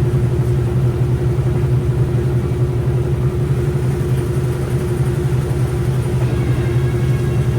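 Washing machine running: a steady low motor hum with a fast, even rumble beneath it.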